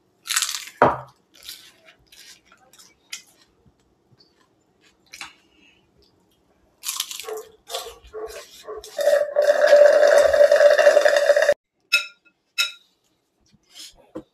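Plates, a plastic high-chair tray and cutlery clinking and knocking during a meal. Near the end a loud, steady high-pitched tone holds for about two and a half seconds and cuts off suddenly.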